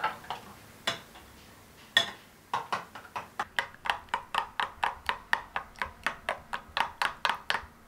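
Metal utensil beating a thick yogurt-and-egg sauce in a glass bowl, clinking against the glass: two single taps, then a quick, even run of about four strokes a second.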